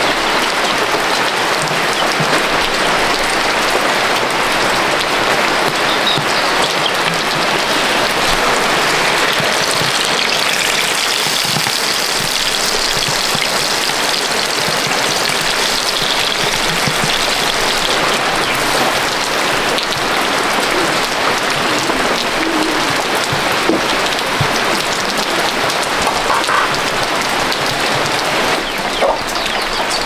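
Slabs of tofu frying in hot oil in a nonstick pan: a steady sizzle.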